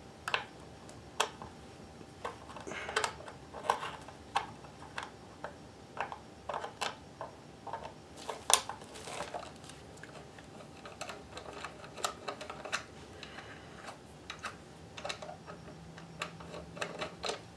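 A screwdriver turning a screw in the metal bottom cover of a Kenmore 158.1030 sewing machine, making irregular small clicks and ticks, with a sharper click about halfway.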